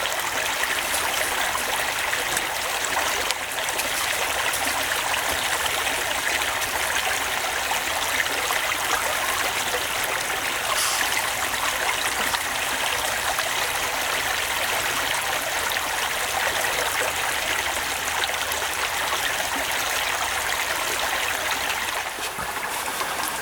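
A steady, even rushing hiss that holds unchanged throughout, with no distinct events.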